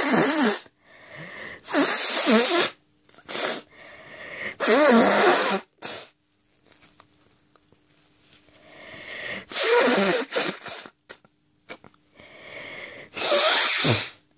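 A person blowing their nose, about six forceful blows with quieter breathing between them, several blows carrying a wavering honking tone.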